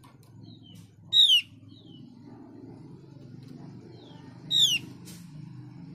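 Female Javan grey-throated white-eye (opior jawa) calling for a male: two short, loud calls, each a quick run of falling notes, about a second in and near the end, with a few faint single notes between.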